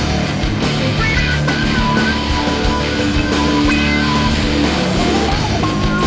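Rock music with guitar and a steady beat.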